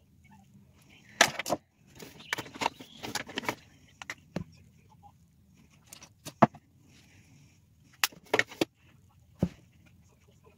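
Scattered clicks and knocks from handling makeup: a plastic powder compact and makeup brushes being picked up and used, in small clusters of sharp taps.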